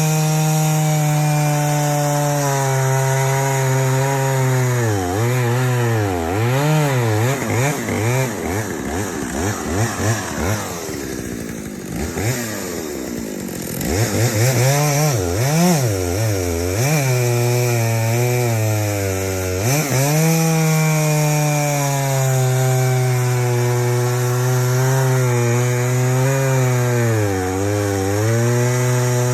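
Stihl 056 Magnum II two-stroke chainsaw, tuned slightly rich, cutting through live red oak at full throttle. The engine pitch sags and recovers as the chain is dug in under load. About a third of the way through it eases off and wavers for a few seconds, then revs back up and cuts on steadily.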